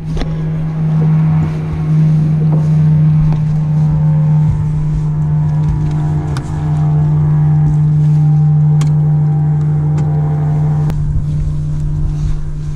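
Bass boat's bow-mounted electric trolling motor running with a steady hum, briefly easing off and coming back about six seconds in. A few sharp ticks sound over it in the second half.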